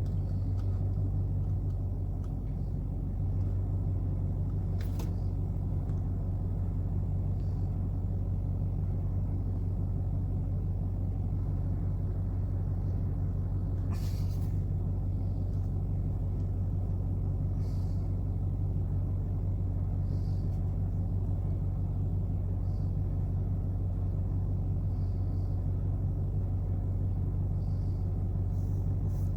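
Car engine idling steadily, heard from inside the stopped car as a low, even hum, with a couple of faint clicks.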